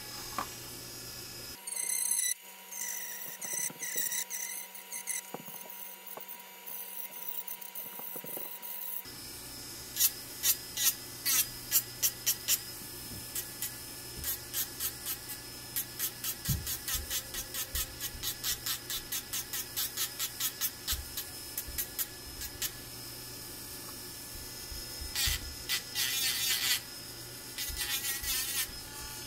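Dremel Stylo rotary tool whining at speed with a 120-grit sanding wheel, scuffing a 3D-printed polymer pistol grip. The steady motor sound is broken, from about a third of the way in, by repeated short grinding scrapes, roughly two a second, as the wheel is pressed to the grip again and again.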